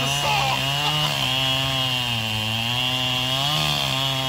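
Echo CS-7310P two-stroke chainsaw at full throttle, its chain cutting through a thick squared timber. The engine note sags under the load of the cut from about two seconds in and picks up again near the end.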